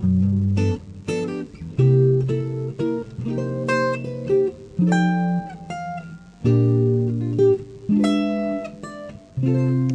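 Background music: an acoustic guitar plucking and strumming chords, a new chord roughly every second.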